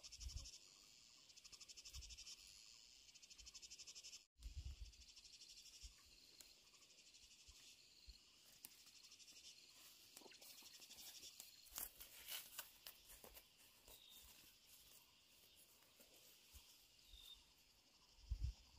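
Faint, steady high-pitched chirring of insects, a fast trill that carries on throughout, with a few soft clicks in the middle.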